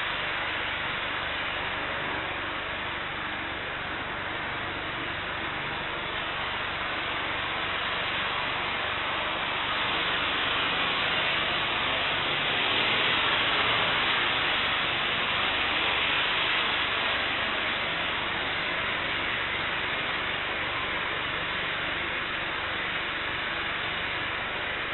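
Distant roar of a Boeing 747-8F's jet engines as the freighter rolls along a wet runway: a steady, hiss-like rush that swells a little about halfway through.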